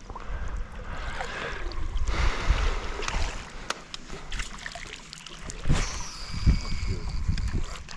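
Water lapping and splashing against a fishing boat's hull, with scattered knocks and clicks.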